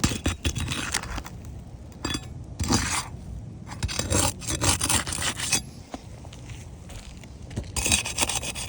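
Rough scraping against asphalt roof shingles in several uneven strokes, dying down for a couple of seconds near the end.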